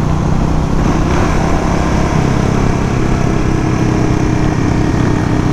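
Suzuki DR-Z400 supermoto's single-cylinder four-stroke engine running steadily at a constant cruise, mixed with wind and road rush.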